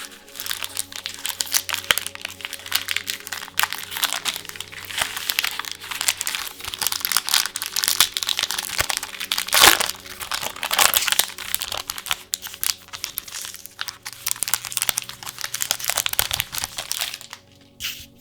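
Foil wrapper of a trading card booster pack crinkling as it is handled and torn open by hand, in a dense irregular crackle with the loudest crackle about ten seconds in. It dies down shortly before the end.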